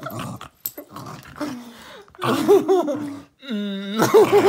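Small terrier growling and snarling in several short bursts as it goes for a hand waved in its face, with a longer held growl near the end.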